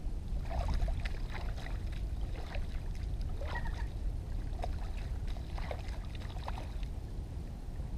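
Hands sloshing and rinsing freshly caught tilapia in shallow lagoon water, with irregular small splashes and swishes over a steady low rumble.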